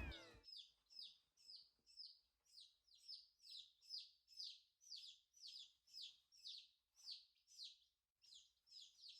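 Baby chicks (peeps) peeping: a faint, steady run of short, high calls that slide downward in pitch, about two to three a second.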